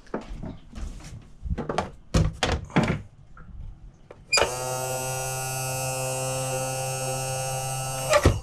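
A few knocks and clicks of handling, then an electric bilge pump motor starts abruptly just over four seconds in and runs with a steady, even hum for about four seconds before cutting off with a click near the end: the pump is working once its switch is turned on.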